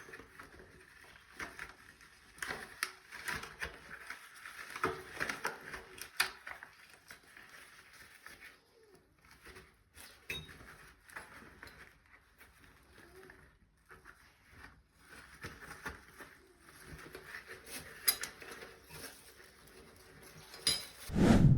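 Intermittent light knocks and rubbing noises, with a heavy low thump near the end.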